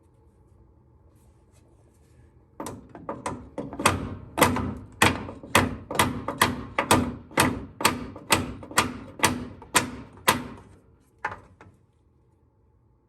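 Hammer pounding on the steering bellcrank pin to drive it out: a quick run of metallic blows, about two to three a second, lighter at first and then heavier, for roughly eight seconds, followed by two lighter taps.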